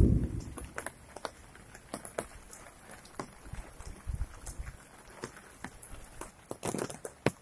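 Light rain dripping: scattered, irregular taps of raindrops, a few a second, after a low thump at the very start.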